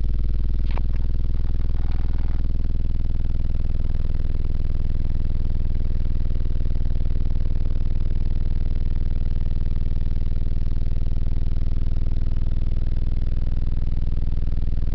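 Orion XTR Pro 12-inch car subwoofer, driven at 500 watts RMS, playing a steady, very deep bass tone with a brief click about a second in.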